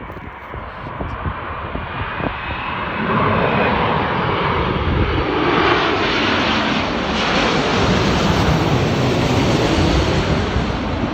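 A jet airliner passing low overhead: a faint engine whine is joined by a wide rushing engine noise that builds about three seconds in and stays loud through the rest.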